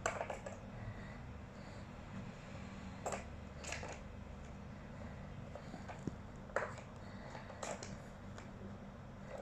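A cat batting at a plastic three-tier ball-track tower toy: scattered sharp clicks and knocks of plastic as the balls and its paw strike the track, a few at a time every second or several.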